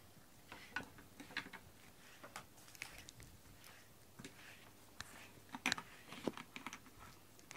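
A cat gnawing and rubbing its mouth on a pink plastic bristle brush: quiet, irregular clicks and scrapes, busier about two thirds of the way through.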